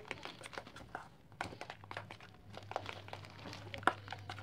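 A plastic packet crinkling and a spoon and hand stirring wet bait dough of egg, coconut milk and powder in a stainless-steel bowl: a string of irregular small clicks, scrapes and rustles.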